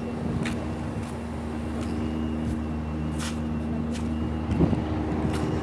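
Steady low motor hum with a few faint taps and clicks.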